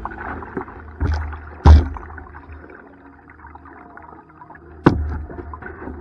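Kayak paddling: water splashing and gurgling around the paddle and hull, with three sharp knocks, the loudest about two seconds in, over a low rumble.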